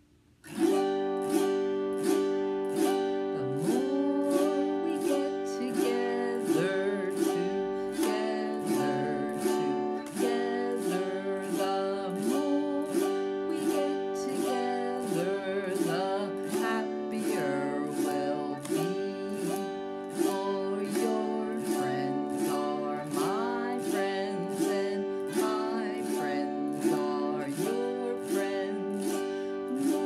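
Autoharp strummed in a steady rhythm, about three strums every two seconds, while a woman sings a song along with it.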